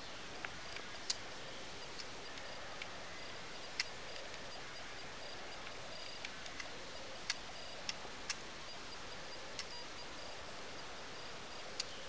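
Outdoor garden ambience at a bird feeder: a steady hiss with a dozen or so sharp ticks at irregular intervals and a faint high tone on and off.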